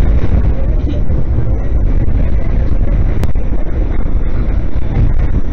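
Subway car running along the track, heard from inside the car as a loud, steady low rumble, with a single sharp click about three seconds in.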